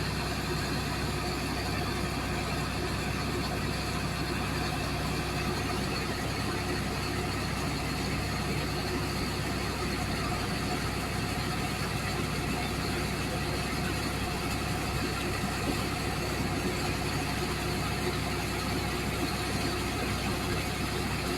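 An engine running steadily at constant speed, with an even hiss over it.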